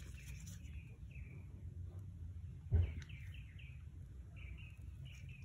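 A soft knock about three seconds in as gloved hands handle laser-cut wooden kit parts, over faint, short high chirps that repeat several times a second.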